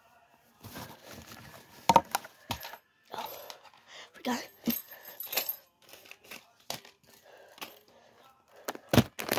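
Objects being handled close to the microphone: irregular clicks and knocks with rustling between them, with a sharp knock about two seconds in and another near the end.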